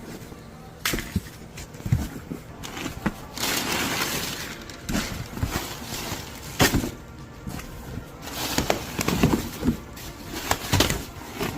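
Packaging of an oil change kit being opened and handled: rustling and crinkling with repeated knocks and clicks as parts are taken out.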